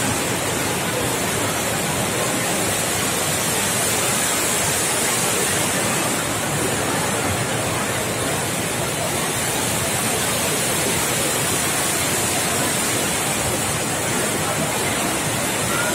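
Indoor whirlpool waterfall (the Rain Oculus): water swirling out of a ceiling bowl and falling as one thick column into a pool, with a steady, even rushing splash.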